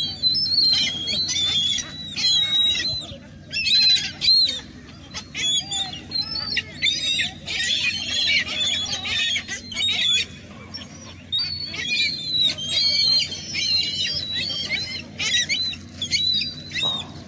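A flock of seagulls calling noisily while being fed: many overlapping high-pitched squealing cries in bursts one after another, over a steady low hum.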